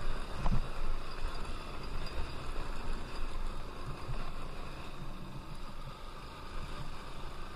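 Honda XR190L's single-cylinder engine running as the bike rides over a bumpy dirt track, with a sharp knock about half a second in. It gets quieter toward the end.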